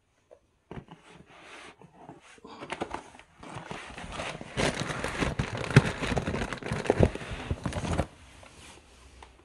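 Clear plastic wrap and air-cushion packing film crinkling and crackling as it is handled. It is dense and irregular, loudest in the middle, and stops about eight seconds in.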